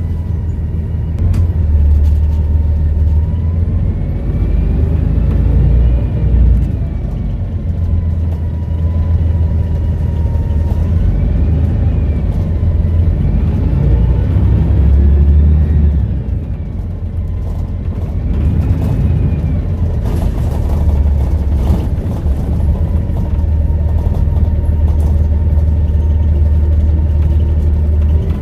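Volvo B7RLE bus engine under way, with a deep steady rumble and a turbocharger whistle that rises and falls several times as the bus pulls away and eases off.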